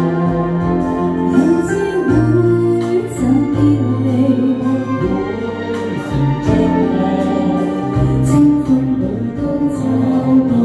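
A woman singing a ballad into a handheld microphone over a backing track, her amplified voice gliding over a steady accompaniment.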